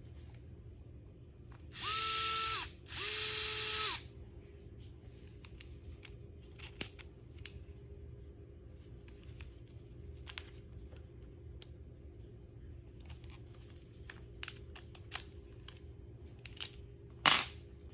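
Vessel 220USB-P1 electric ball-grip screwdriver motor run twice with no load, each burst about a second long, whining up to speed, holding and winding down. Later come scattered sharp clicks as bits are pulled out of and pushed into the hex chuck, the loudest click near the end.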